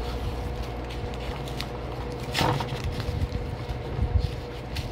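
Paper packaging on a cornstarch brick being torn and peeled away by hand, with scattered crinkles and clicks and one louder tearing rustle about halfway in, over a steady low hum.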